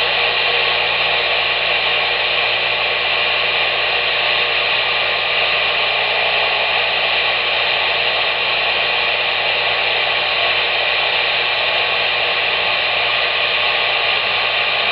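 Steady static hiss from a Cobra 140 GTL CB radio's speaker, even and unbroken, with the thin, narrow sound of a radio speaker.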